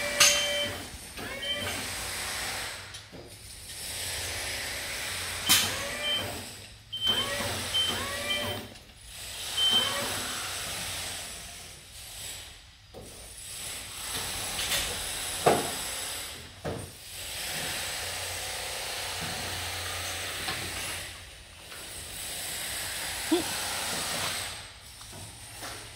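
Construction work noise: hissing bursts that come and go every few seconds, short high beeps in the first several seconds, and a few sharp knocks.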